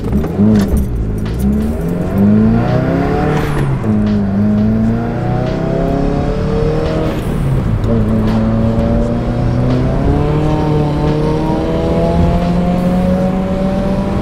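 2015 Subaru WRX's turbocharged FA20 flat-four, through a titanium aftermarket exhaust, blipped twice and then driven hard through the gears. The pitch climbs, drops sharply at an upshift a little over three seconds in and again about seven seconds in, then rises slowly in the next gear.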